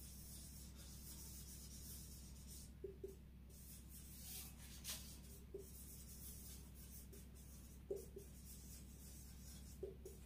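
Faint marker pen writing on a whiteboard: the felt tip rubs across the board in short scratchy strokes, with a few light taps as letters are dotted and finished.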